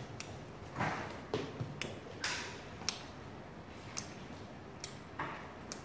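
A spoon stirring thick, sticky slime in a plastic bowl: irregular light clicks and ticks, with a few short scraping swishes.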